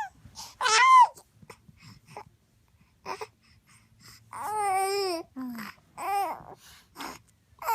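A four-month-old baby fussing and crying in short, wavering wails, with a loud high cry about a second in, then a pause, then a string of shorter cries.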